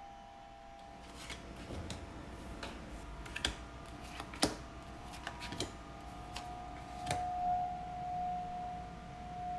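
Tarot cards being handled and laid down on a cloth-covered table: a string of sharp, irregular card snaps and taps. Under them a faint, steady ringing tone swells near the end.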